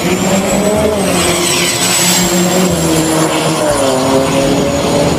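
Vehicle engine noise running steadily, with a wavering engine pitch and a faint high whine over it.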